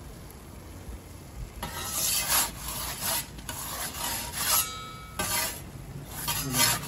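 Metal pizza peel scraping across the stone floor of a gas pizza oven in a series of rough strokes, starting about a second and a half in, as it is slid under the pizza to lift and turn it. Beneath it, the gas burners run with a low steady rumble.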